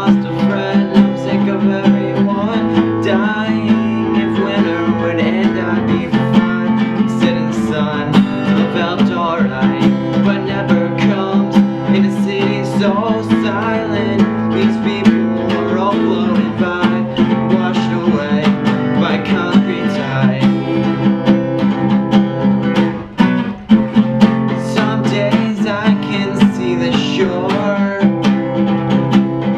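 Acoustic guitar strummed in a steady rhythm, with a young man singing along. The strumming breaks off briefly about two thirds of the way through.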